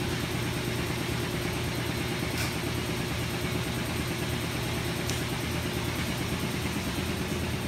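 Exhaust fan running steadily to pull paint overspray fumes out of the spray area, a constant motor hum and rush of air, with a couple of faint ticks.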